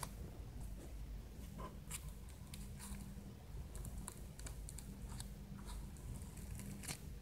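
Fingers poking and kneading iceberg slime studded with foam beads: irregular small crackles and clicks.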